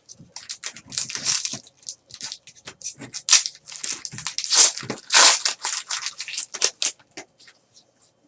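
Trading-card pack wrappers and cards being handled: an irregular run of crinkling, tearing rustles that is loudest in the middle and dies down near the end.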